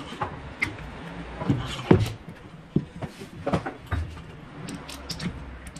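Irregular clicks and knocks of a Renault Megane 1 cable-type window regulator being handled while it is assembled: the plastic cable-drum housing and steel rail knocking and the cables rattling. The loudest knock comes about two seconds in.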